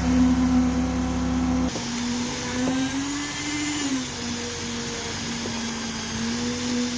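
Small engine running steadily with a strong, even hum. About two seconds in, the deep rumble drops away abruptly, and the pitch rises briefly before settling back.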